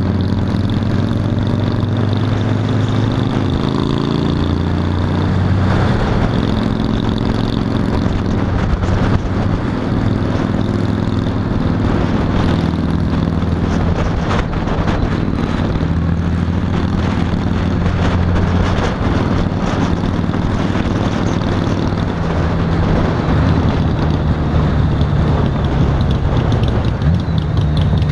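Honda Valkyrie F6C motorcycle's flat-six engine running under way, its pitch shifting up and down several times as speed changes.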